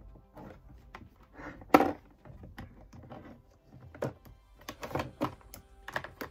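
Plastic makeup products being shuffled and pressed into plastic storage trays in a drawer: a run of small irregular clicks and knocks, the loudest about two seconds in.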